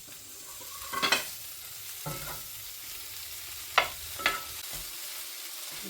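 Tomatoes and mushrooms in a spiced curry base sizzling in a frying pan, with a utensil stirring and knocking against the pan: one sharp knock about a second in and two more around four seconds in.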